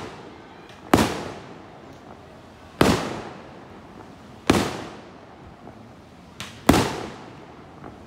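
Fireworks going off as a series of loud, sharp bangs, four in all, one about every two seconds. Each bang echoes briefly before dying away, and a smaller pop comes just before the last one.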